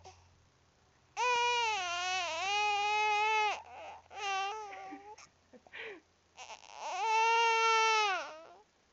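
Baby crying over the hiccups: two long wails of about two seconds each, one starting about a second in and one past the middle, with short broken cries between them.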